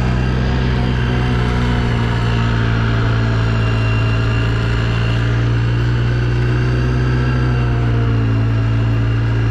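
ATV engine running at a steady cruising speed: a constant low drone whose pitch holds nearly even throughout.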